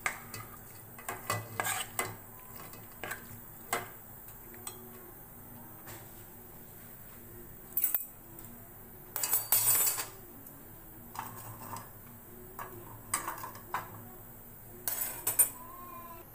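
A steel spoon clinking and scraping against a steel bowl as minced meat is mixed into its marinade: scattered light knocks at first, then a few longer scraping bursts from about eight seconds in.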